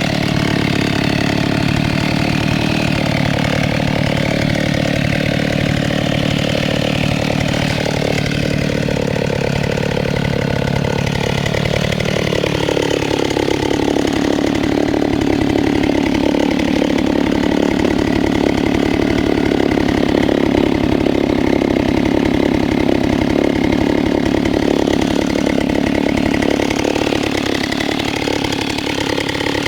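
A Stihl 08 S two-stroke chainsaw engine running steadily. About twelve seconds in, its speed drops to a lower, even pitch.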